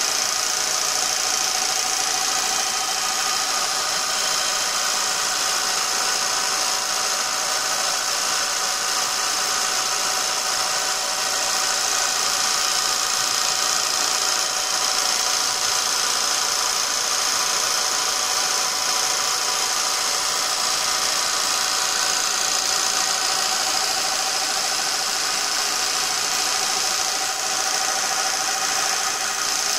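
Lathe spinning a rebuilt Lucas K2F magneto at top speed, about 2,500 rpm, on a test rig: a steady, even mechanical whir and hiss with no change in speed, the magneto sparking across its test plugs.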